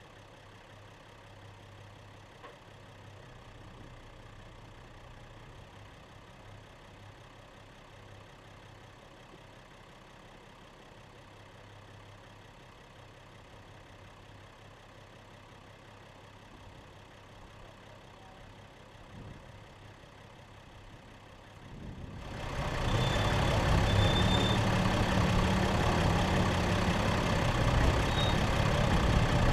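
Four-wheel-drive vehicle's engine running quietly, a steady low hum while it creeps along a dirt track. About 22 seconds in, the sound jumps suddenly to a much louder, dense rush of engine and driving noise.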